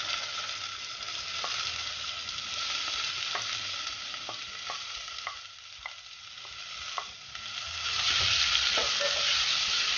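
Diced bell peppers sizzling in hot oil in a stainless steel pot as a wooden spoon stirs them in, with sharp clicks of the spoon against the pot now and then. The sizzle grows louder near the end.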